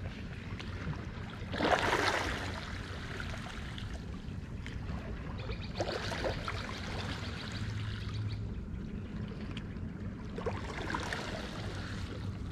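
Small harbour waves lapping and sloshing against a stone seawall, with a louder wash about two seconds in and smaller ones near six and eleven seconds, over a low steady hum.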